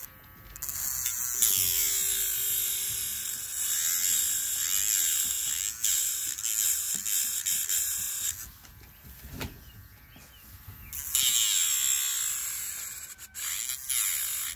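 Furrykid rechargeable pet nail grinder on its low speed, its small motor whining as the diamond-coated grinding bit files a dog's toenail. A gritty high hiss comes in two spells, a long one from about a second in to about eight seconds and a shorter one a few seconds before the end. Between them the motor whines on its own.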